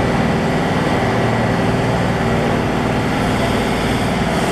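Heavy railway locomotive engine running steadily as a train of coaches approaches slowly.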